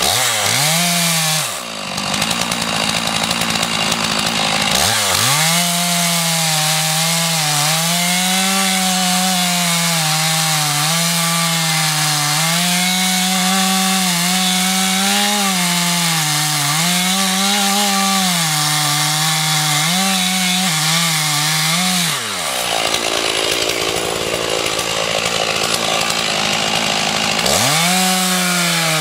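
Two-stroke chainsaw at full throttle cutting into the base of a beech trunk. The engine note sags and recovers over and over as the chain bites into the wood, with a couple of short easings in the cut.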